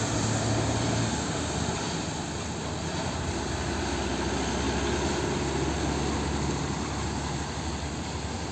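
Nissan Diesel truck's diesel engine running as the heavy truck drives past, with a steady noise of tyres on a wet road.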